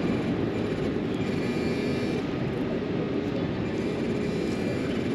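A steady low drone runs evenly throughout, like distant traffic or an aircraft overhead.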